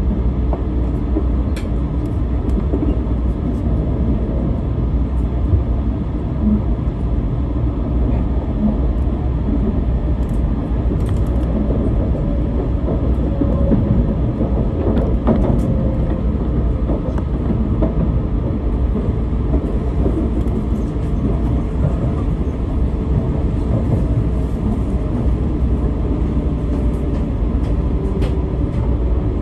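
Steady low running rumble heard from inside the cabin of an E4 series Max double-decker Shinkansen, with a few faint clicks over it, as the train pulls into a station.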